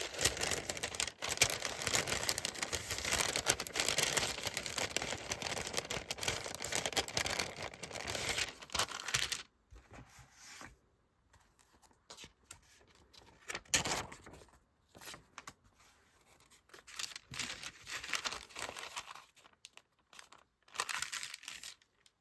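Packaging crinkling and rustling as die-cut stickers are packed by hand. The sound is continuous for about the first nine seconds, then breaks into scattered short rustles and handling noises.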